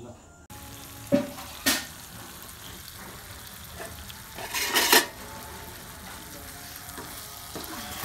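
Oysters in a tomato gravy frying in a non-stick pan with a steady sizzle while a spatula stirs them, starting just after the beginning. Two sharp knocks of the spatula on the pan come about a second in, and a louder stretch of stirring about five seconds in.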